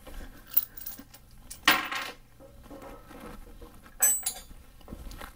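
Metal tools and hardware clinking and knocking about three times, with one short, high metallic ring about four seconds in.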